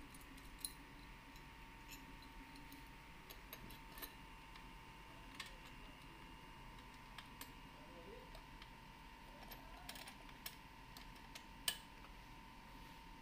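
Scattered light clicks and taps of small plastic parts being handled and fitted by hand on a child's tricycle, with the sharpest click near the end. A steady faint hum runs underneath.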